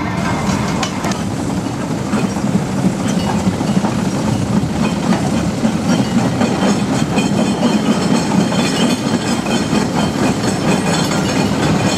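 Aveling and Porter 10-ton F-type steam roller running, a steady mechanical clatter from its engine and gearing with rapid fine ticking.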